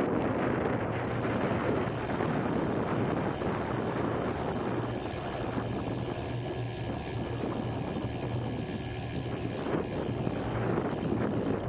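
Aircraft passing overhead: a steady low drone with a high hiss that comes in about a second in and drops away near the end, over wind on the microphone.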